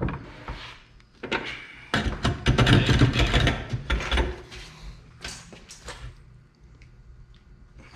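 Sheet metal being forced and bent by hand, a dense clatter of scraping and knocking that is loudest in the middle, then tails off into lighter rattles.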